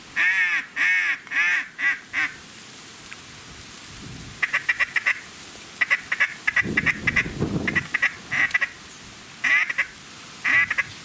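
Ducks quacking: a run of about five loud quacks, then stretches of rapid chattering notes mixed with more quacks, and a few single quacks near the end.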